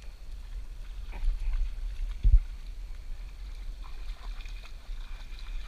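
River water sloshing against a camera held at the water surface, a steady low rumble with light clicks. One sharp bump against the camera comes a little past two seconds in.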